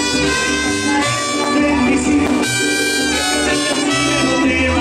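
Live mariachi band playing: trumpets carry the melody over strummed guitars and stepping plucked bass notes.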